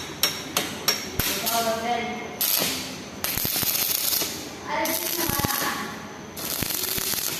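A few sharp taps on metal, then four bursts of electric arc welding crackle, each starting and stopping abruptly and lasting up to about a second and a half, as the gate's lock fitting is welded.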